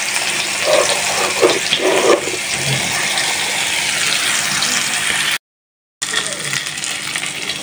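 Rohu fish steaks sizzling steadily as they fry in hot oil in a pan, a continuous hiss. The sound cuts out completely for about half a second around five and a half seconds in.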